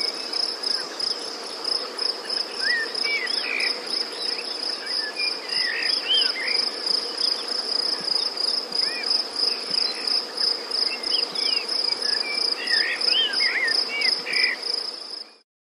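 Woodland ambience of insects chirping in a steady, high, pulsing cricket-like trill, with scattered short bird calls over it. The sound cuts off just before the end.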